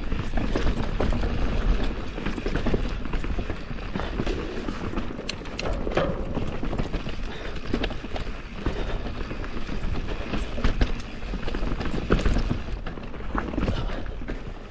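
Mountain bike riding down a rough dirt trail: tyres rolling and crunching over the ground with frequent irregular knocks and rattles from the bike, over a steady low wind rumble.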